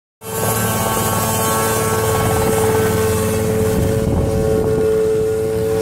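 Revolution Mini-500 helicopter running steadily, engine and main rotor, as it lifts off the ground into a low hover. Its engine is a Rotax 582 two-stroke.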